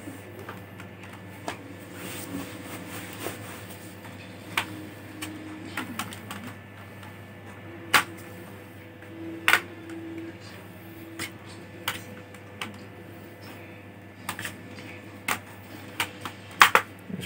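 Plastic clicks and snaps as an HP Pavilion 14 laptop's case is pressed down so its clips latch shut. They come irregularly, with two louder snaps around the middle and a quicker run near the end.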